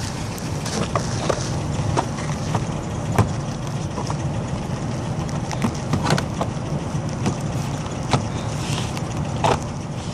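Clicks and knocks from the car's door and handle being handled, over a steady low rumble. The clearest knocks come about three, six and nine and a half seconds in.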